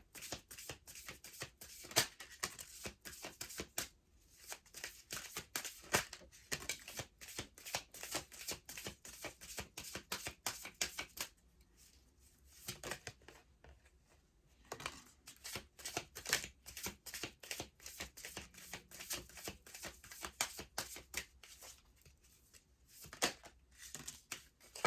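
A deck of angel oracle cards being shuffled by hand: rapid runs of card clicks and flutters in several spells, with short pauses between them.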